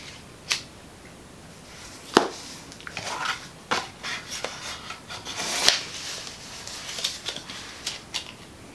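Eyeshadow palettes and their box being handled: scattered taps, clicks and rustles, the sharpest about two seconds in and just before six seconds.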